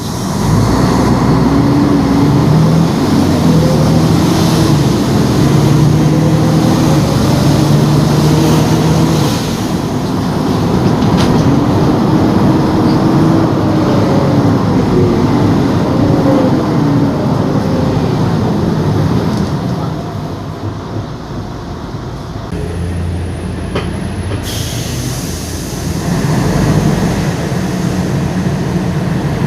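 Mercedes-Benz O-500UA articulated bus's diesel engine and ZF automatic gearbox under way. The engine note steps up and down with gear changes over the first several seconds, then rises and falls in one long sweep. It drops back quieter for a few seconds and picks up again near the end.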